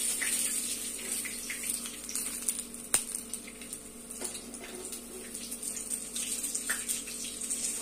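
Hot oil sizzling steadily in a kadhai as balls deep-fry, with scattered crackles and one sharp tap about three seconds in.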